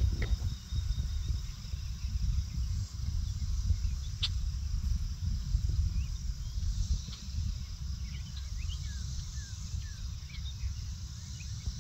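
Steady drone of insects over a low, uneven rumble, with a single click about four seconds in and a few short chirps between about eight and ten seconds in.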